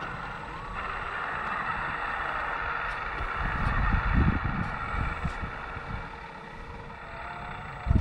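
Electric hydraulic pump of a scale RC CAT loader running steadily as the loader arm lifts a work basket, with a few low thuds around the middle.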